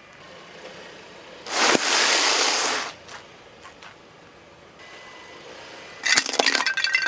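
Things being crushed under a car's tyre: a loud hissing burst lasting over a second, then near the end a clatter of glass clinking and breaking.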